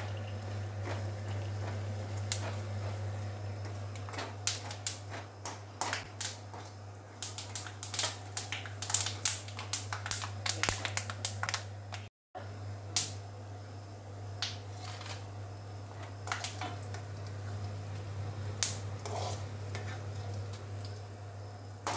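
Metal mesh ladle scraping and clicking against an iron kadai as melon seeds are stirred while they roast in ghee: irregular sharp ticks, busiest toward the middle, over a steady low hum.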